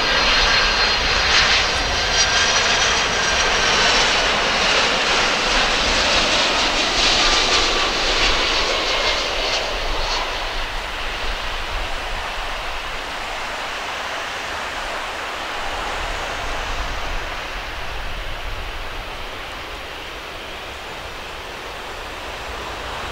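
Boeing 767-300 freighter's two turbofan engines on a low landing approach: a loud whine of several high tones that drift slightly down in pitch. After about ten seconds the whine fades into a steadier, quieter rush of noise as the jet lands and rolls away down the runway.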